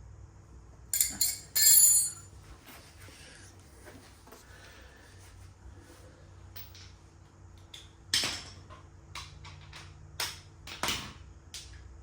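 Metal hand tools clanking and clinking while being handled during a dirt-bike chain adjustment: a couple of loud clanks about a second in, then a run of sharper clicks and knocks near the end.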